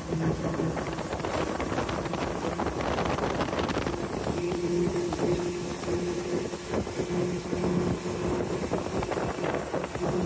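Motorboat running underway: a steady engine hum under the rush of wind and water, with wind buffeting the microphone.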